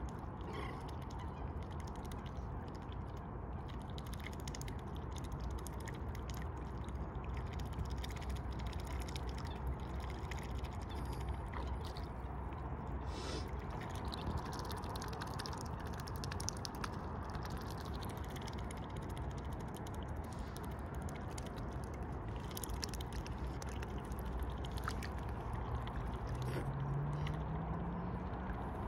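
Mute swans dabbling for seeds in shallow water: irregular soft splashes and small bill clicks over a steady low rumble.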